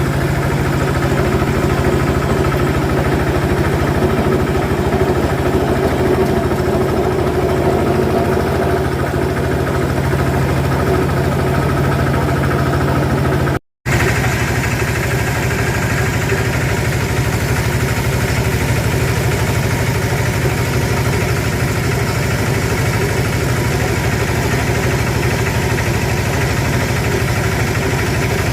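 Pellet-making machine running steadily with a constant motor hum and rattle. The sound stops for a moment about halfway through.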